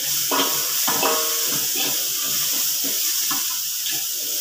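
Food frying with a steady sizzle in a hot wok, while a metal spatula scrapes and clinks against the pan in repeated strokes.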